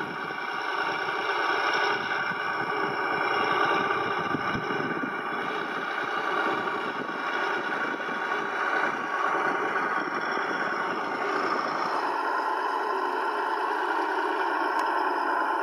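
Sampled MAN V8 truck engine sound from an RC truck's Ess-One sound module, running and rising and falling with the throttle. About twelve seconds in the note changes and loses its low rumble.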